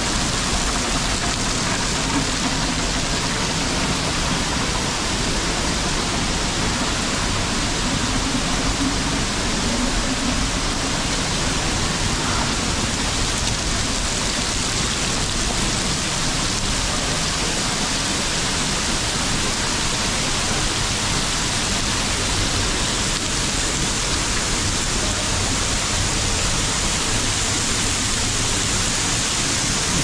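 Steady, even rush of falling water from a waterfall about 25 metres high, heard close up.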